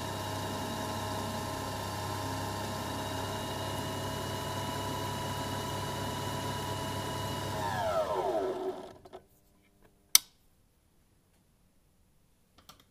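Belt-driven milling spindle on a watchmaker's lathe, running with a steady whine from its motor and pulley belts. About eight seconds in it is switched off and winds down, its pitch falling. A single sharp click comes a couple of seconds later, with faint clicks near the end.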